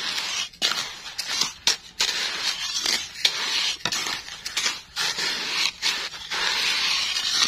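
Wooden spatula scraping and stirring hot sand in an earthenware pot to fry krupuk crackers: a gritty scraping hiss of moving sand in quick, irregular strokes.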